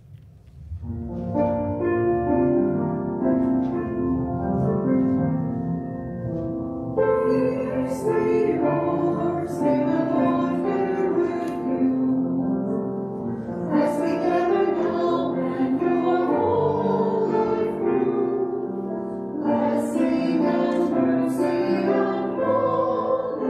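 Church choir singing a hymn with keyboard accompaniment. The keyboard introduction starts about a second in, and the voices come in at about seven seconds.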